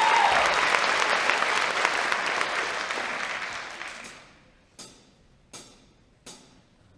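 Audience applauding, dying away over about four seconds. Then three sharp, evenly spaced clicks, about three-quarters of a second apart.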